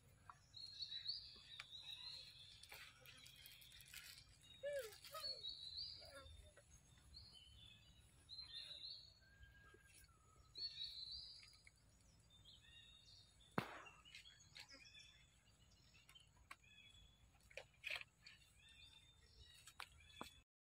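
Faint, short, high-pitched chirps and squeaks, scattered through otherwise near-silent outdoor ambience, with a single sharp click about two-thirds of the way through.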